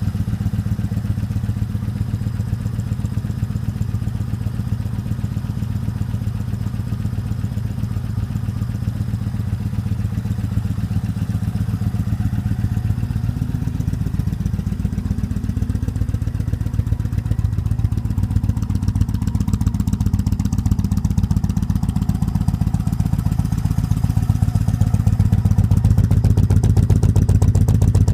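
Motorcycle engine idling steadily after a hard start, getting a little louder over the last few seconds.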